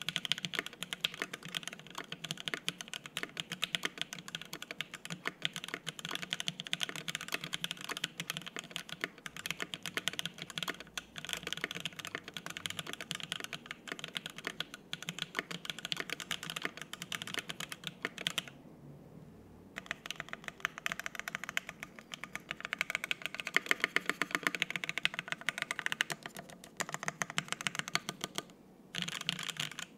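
Typing on a custom tenkeyless mechanical keyboard with stock Everglide Water King 62 g linear switches on an FR-4 plate and GMK double-shot ABS keycaps: a steady stream of rapid key clacks. The typing stops for about a second just past the middle, then grows louder and faster for a few seconds before dipping briefly near the end.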